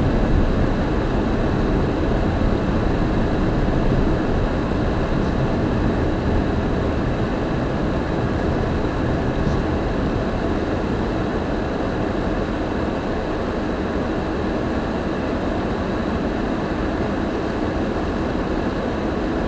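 Steady road and engine noise heard inside a moving car's cabin, easing slightly as the car slows.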